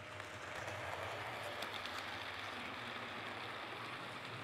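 HO scale model train running along the track: a steady, faint rolling hiss from the locomotive's motor and the wheels on the rails, with a few light clicks.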